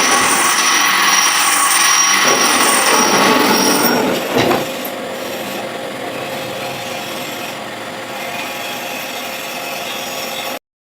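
Manual lathe cutting metal: a loud rasping scrape of the tool on the turning workpiece for about four seconds, then a click and the lathe running on more quietly without cutting. The sound cuts out for a moment near the end.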